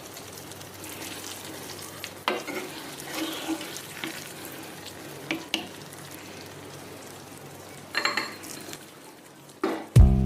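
A metal spoon scraping and tapping against a pan as thick carrot halwa is stirred and served out: a few separate scrapes and clinks over a faint steady hiss. Loud music comes in near the end.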